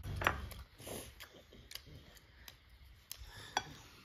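Cutlery and hands on ceramic plates during a meal: a scattering of small clicks and taps, the loudest just after the start and another about three and a half seconds in.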